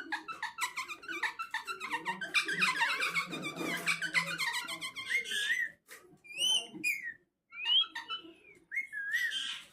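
Pet parrot chattering and whistling: a fast run of short chirps for about five seconds, then several separate whistled calls with short pauses between them.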